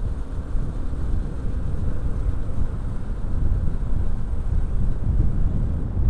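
Wind rushing and buffeting over a helmet-mounted microphone on a moving Honda Supra motorcycle, a steady low rumble with the small engine running underneath.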